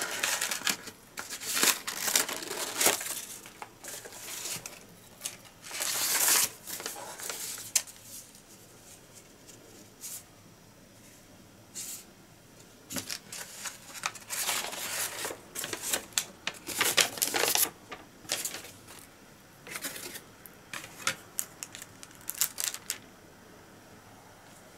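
Paper wrapper and string of a boxed station bento being untied and unwrapped by hand, then the box opened: bursts of paper rustling and crinkling, with a lull of a few seconds about a third of the way in.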